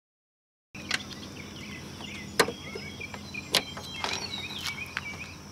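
Sharp clicks and knocks of a plastic tail-lamp bulb socket being twisted out and handled, the two loudest about two and a half and three and a half seconds in, over a steady background hiss. The sound cuts in after nearly a second of silence.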